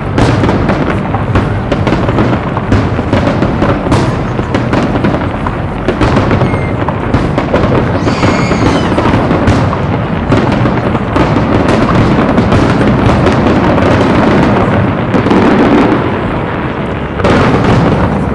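Large aerial fireworks display: a dense, unbroken barrage of shells bursting and crackling.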